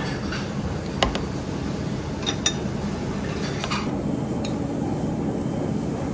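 Chopsticks and plates clinking on a table: a few short sharp clicks, the loudest about a second in, over a steady background hum.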